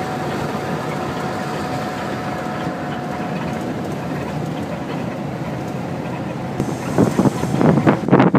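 Steady engine and road noise in the cabin of a moving coach, with a faint steady whine that fades out about halfway. About seven seconds in, several people's voices take over.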